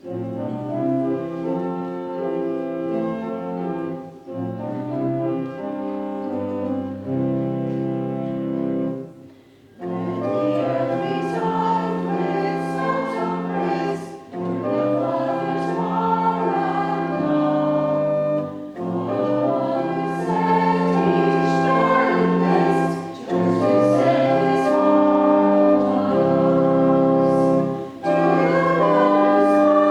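Many voices singing a hymn together in sustained chords, with short breaks between lines.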